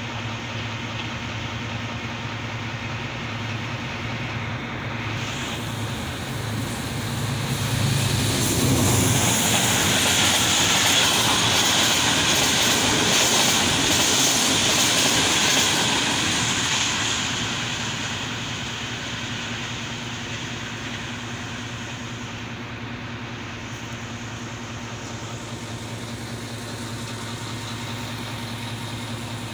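Express passenger train rushing past at speed. The noise builds from about seven seconds in, is loudest for roughly eight seconds with a rapid clatter of wheels over the rails, then fades. Underneath, a steady low drone from an idling ZCU20 diesel locomotive standing nearby.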